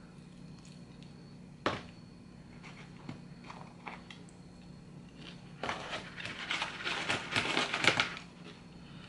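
Takeout food and its packaging being handled by hand: one sharp click nearly two seconds in, a few softer clicks, then about two and a half seconds of dense crackling and rustling from a little past halfway.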